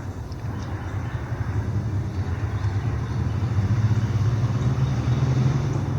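Steady low rumble of passing road traffic, growing gradually louder toward the end.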